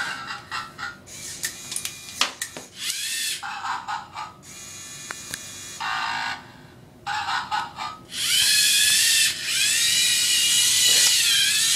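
Electric servo motors of a Lego Mindstorms EV3 robot whining as it runs a program, driving and turning on its tracks. The whine comes in short spurts with a few sharp clicks, then runs longer and louder near the end, its pitch falling and rising as the motors slow and speed up.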